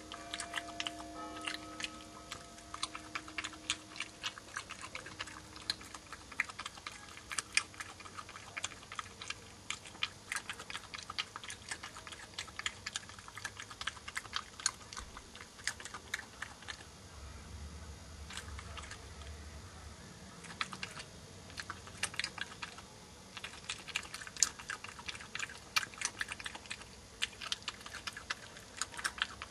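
European badger crunching peanuts: a dense, irregular run of sharp cracks and clicks of chewing, several a second.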